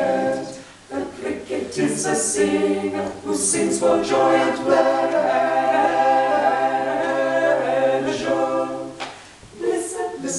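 Small women's a cappella group singing in close harmony, with a long held chord in the middle and short breaks between phrases about a second in and near the end.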